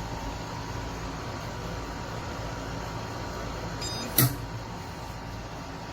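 Steady low hum; about four seconds in, a brief high electronic beep followed at once by a single sharp click.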